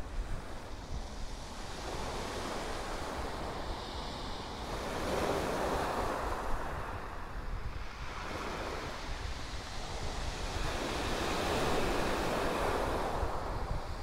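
Small waves breaking and washing up a shingle beach, the surf swelling loudest about five seconds in and again near the end. Wind buffets the microphone throughout as a low rumble.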